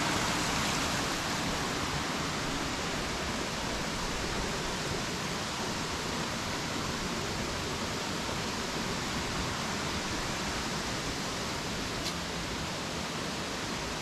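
Steady rush of a small mountain creek spilling over rocks, an even hiss that eases a little in the first couple of seconds.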